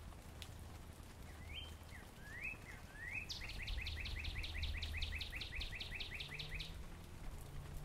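Northern cardinal singing: a few rising slurred whistles, then a fast run of about eighteen falling notes at roughly five a second. A steady low background hum runs underneath.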